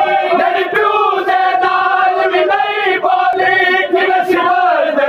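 A crowd of men loudly chanting a noha, a Shia lament for Imam Husain, together with the slaps of chest-beating (matam).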